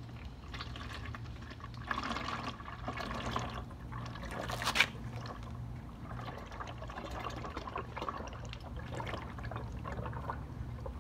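Used motor oil pouring from a plastic drain pan through a funnel into a plastic oil jug, a continuous trickling, filling stream. About four and a half seconds in there is one sharp knock, the loudest sound, and a low steady hum runs underneath.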